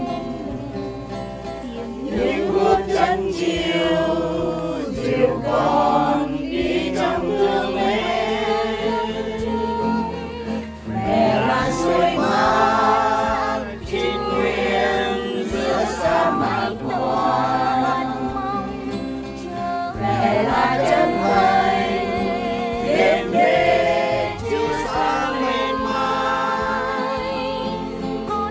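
A choir of voices singing a hymn together, the sung lines swelling and pausing briefly every few seconds.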